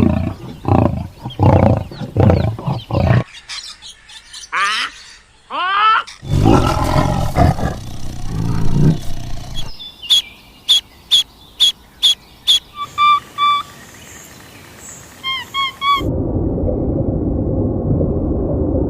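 A run of different animal calls changing every few seconds: repeated short calls, then rising, gliding cries, then quick chirps, about three a second. In the last few seconds a steady noise takes over.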